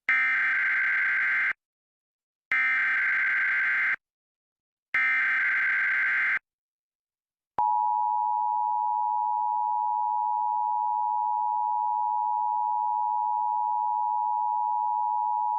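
Emergency Alert System test tones. First come three identical bursts of SAME header data, each a buzzy digital warble about a second and a half long, with a second of silence between them. Then, after a pause, the EAS two-tone attention signal begins about seven and a half seconds in and holds steady for about eight seconds.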